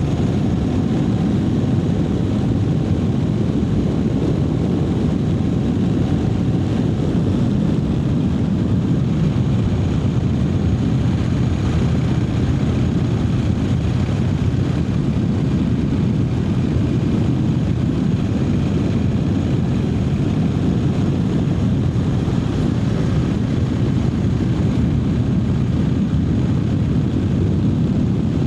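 Triumph Speed Twin 900's parallel-twin engine running steadily while the motorcycle cruises, with no marked revving or gear changes.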